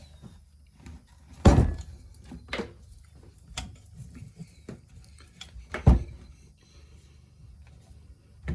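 Clunks and knocks as a Harbor Freight portable bandsaw is fitted into a wooden stand. Two loud knocks come about a second and a half in and near six seconds, with lighter taps between.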